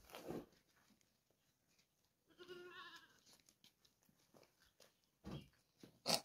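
A goat bleats once, a single wavering call about two and a half seconds in, among a few scattered knocks and thumps. A sharp knock near the end is the loudest sound.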